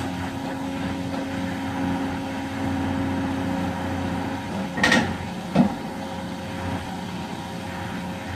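Hyundai HX330L excavator's engine and hydraulics running steadily with a constant whine, powering an SMS SG80 side-grip vibro hammer holding a steel sheet pile. Two sharp knocks come near the middle, about a second apart, the first with a short ring.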